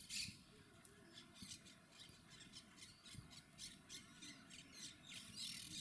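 Monk parakeets squawking faintly: a run of short calls, several a second, with louder calls at the start and near the end.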